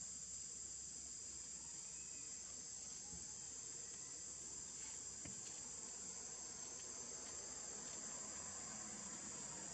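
Steady high-pitched insect chorus, crickets or cicadas, droning without a break.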